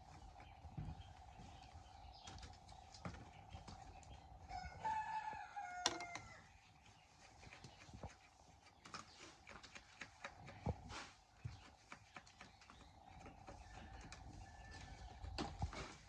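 A rooster crows once, about five seconds in, over a faint steady tone and scattered light knocks.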